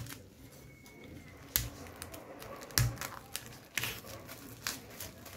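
Irregular sharp taps and knocks, about five in a few seconds, as the large, heavy Tom of Finland XXL hardcover book is handled and shifted on a wooden tabletop.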